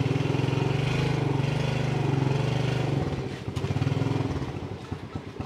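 Small motorbike engine running close by with a steady low putter. It eases off about three seconds in, picks up briefly, then drops away about four seconds in.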